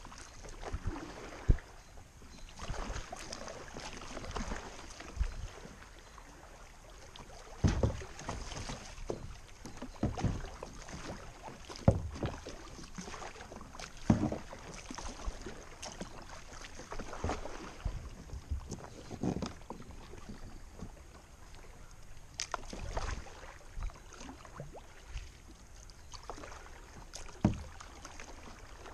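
Kayak paddle strokes splashing into the river at irregular intervals of about two seconds, over a steady wash of moving water around the plastic sit-on-top kayak's hull.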